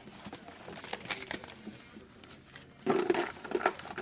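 Crinkling and rustling of a foil booster-pack wrapper as it is torn open and the cards handled, in irregular small crackles.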